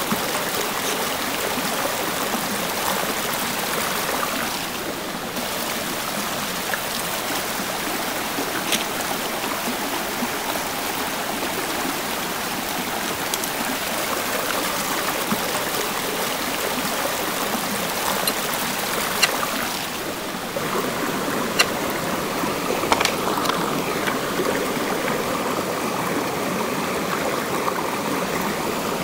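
Shallow rocky stream flowing steadily. A few sharp clicks come from the metal poles of a folding camp table as they are fitted together.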